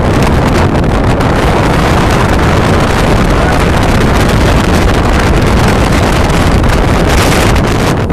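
Strong wind blowing over the microphone: a loud, steady rush of noise with heavy low rumble.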